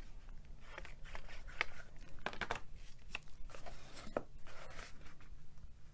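Cardstock and patterned paper being handled: scattered light rustles, crinkles and small taps.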